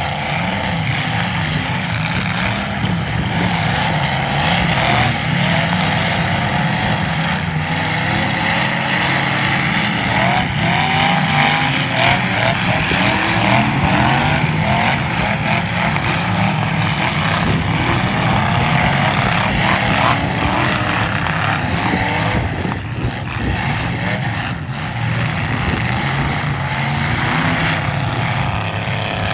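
Several demolition derby cars' engines running and revving hard, the pitch rising and falling constantly, with occasional sharp knocks.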